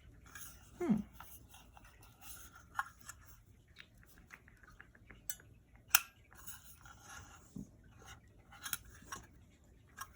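Small clicks, taps and light clatter of handling a small plastic-and-metal pop-up card holder. A short falling squeak comes about a second in, and one sharp click about six seconds in.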